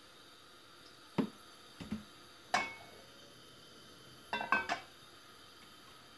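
Kitchenware being handled: a knock about a second in, another just before two seconds, a clink with a brief ring soon after, then a quick run of three clinks a little past four seconds.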